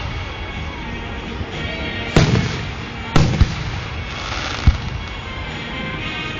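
Aerial fireworks bursting: about four sharp bangs, two in quick succession about three seconds in, over a steady crackling hiss.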